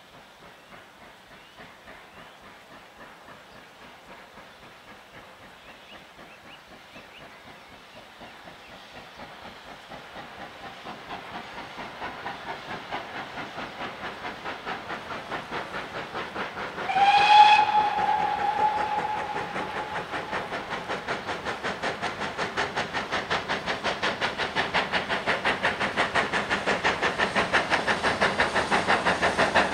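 Steam locomotive approaching, its rhythmic exhaust beats getting steadily louder. About halfway through it sounds one whistle blast, sharp at the start and tailing off over a couple of seconds.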